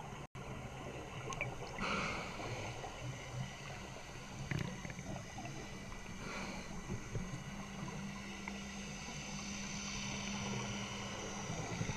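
Underwater recording of a scuba diver's exhaled bubbles rushing out of the regulator in gushes, about two seconds in and again after six, over a steady low hum that sets in about halfway through.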